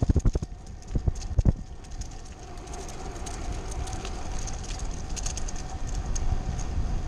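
Road bike riding on a paved trail: a quick run of sharp knocks and rattles in the first second and a half, then a steady low rumble of wind and tyres on the pavement with a faint steady whine.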